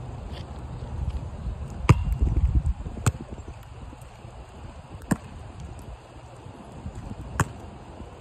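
A basketball bouncing on wet asphalt: a handful of single, sharp bounces spaced one to two seconds apart, the loudest about two seconds in. A brief low rumble comes with the first bounces.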